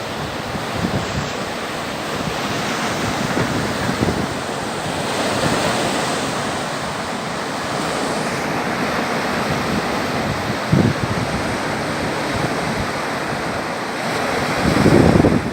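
Baltic Sea surf washing steadily onto the shore, with wind buffeting the microphone; the surf swells louder near the end.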